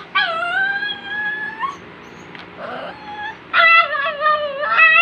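Puppy whining in long drawn-out cries: one lasting about a second and a half at the start, and another starting about three and a half seconds in, with a few short, fainter cries between.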